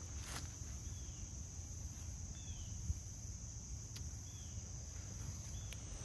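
Crickets chirping in a steady high-pitched chorus, with a few faint short chirps and a low rumble underneath.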